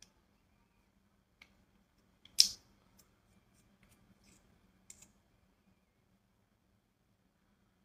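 A few small clicks and taps of a plastic lip gloss tube being handled and uncapped, the loudest a sharp click a little over two seconds in. A faint low hum runs beneath.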